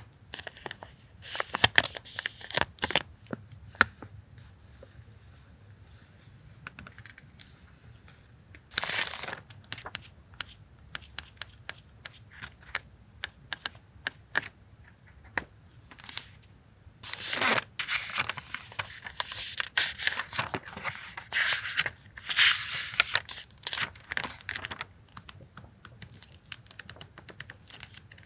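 Paper stationery and its packaging being handled: crinkling and rustling in several bouts, with light taps and clicks between them.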